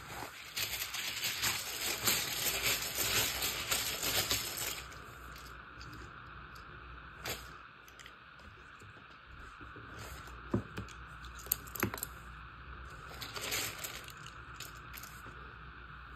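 Scrabble tiles clattering and clicking as a hand rummages through them in a cloth tile bag for about five seconds, then single tiles clicking down on a hard surface now and then as they are drawn and laid out.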